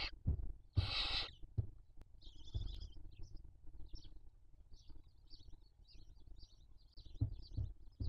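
Barn owl chicks begging for food: two loud rasping hisses in the first second and a half, then a shorter one and a string of faint high twittering calls. Soft low knocks of birds shifting in the nest cavity are heard now and then.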